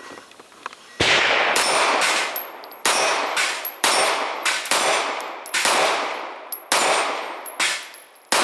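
Smith & Wesson 3913NL 9mm pistol firing a string of single shots about a second apart, starting about a second in, each shot echoing as it dies away. Steel target plates ring when hit.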